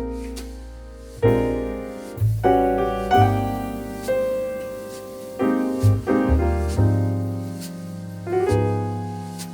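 Background piano music: soft chords and single notes struck about once a second, each dying away, over a low bass line.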